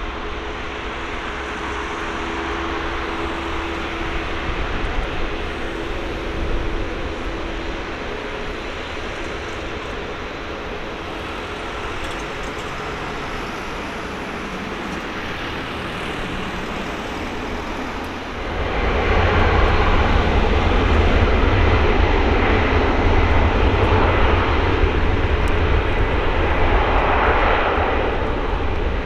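Airbus A380-841's four Rolls-Royce Trent 900 jet engines running with a steady rush of noise and a faint hum. About two-thirds of the way through the sound turns abruptly much louder, with a heavy deep rumble.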